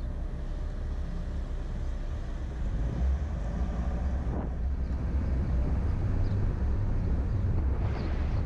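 Car engine and road rumble heard from inside the cabin, getting louder about two and a half seconds in as the car pulls away from a stop and drives through an intersection.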